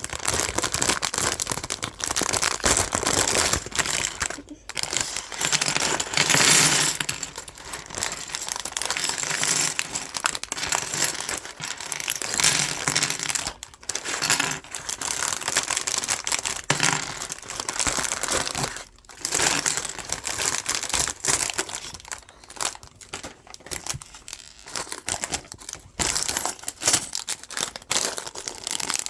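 Plastic bags of LEGO pieces crinkling as they are handled and opened, with small plastic bricks clicking and rattling.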